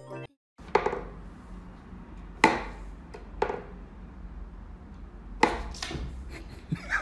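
Wooden pegs of a wooden whack-a-mole cat toy knocking as they are pushed up through the box and swatted by the cat: about five sharp wooden knocks at irregular gaps, two of them close together near the end.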